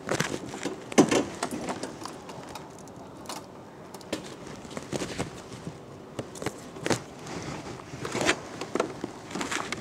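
Irregular knocks, clicks and rustles of handling close to the microphone, the loudest knock about a second in.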